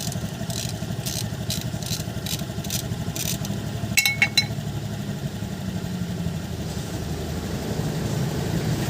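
An engine idling steadily, with a run of quick sharp ticks over it in the first three seconds and a couple of metallic clinks about four seconds in.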